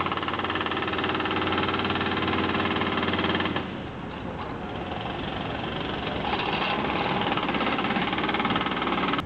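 Mini excavator's diesel engine running with a rapid, even chatter. It drops off about three and a half seconds in and builds back up a few seconds later.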